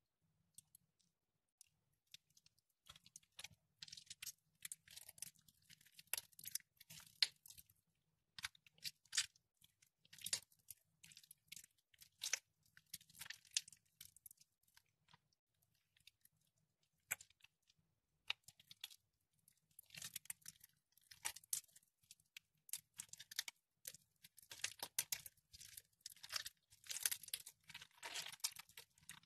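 Water-soaked soap bars being squeezed and crumbled by hand in a bowl of water, making irregular crisp crunching crackles. It is quiet for the first couple of seconds, and the crunching grows densest near the end.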